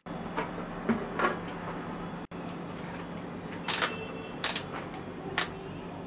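Gloved hands handling gear: several short rustles and clicks, a few near the start and a tight cluster past the middle, over a steady low background hum.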